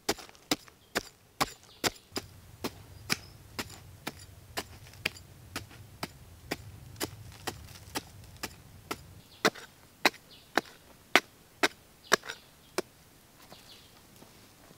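Narrow steel spade blade chopping down into hard, dry, clod-filled soil, a sharp strike about twice a second. The strikes stop a couple of seconds before the end.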